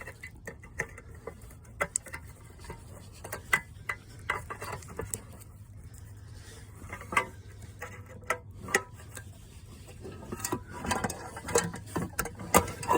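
Plastic wiring-harness connectors being handled and pushed into a car audio amplifier, with irregular sharp clicks and knocks.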